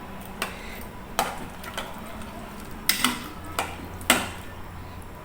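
Metal cooking utensil clinking and knocking against a pot, about half a dozen separate strikes with short ringing tails, the loudest about three and four seconds in, over a low steady hum.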